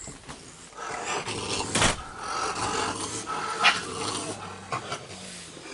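Raccoons growling and snarling at one another over food, a rough low throaty sound that runs on through most of the stretch, with two sharp knocks about two and four seconds in.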